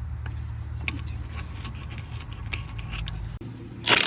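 Steady low drone of a worn front wheel bearing on a moving Mercedes-Benz S550 (W222), with faint ticks over it. The drone cuts off about three and a half seconds in, and a loud brief noise follows near the end.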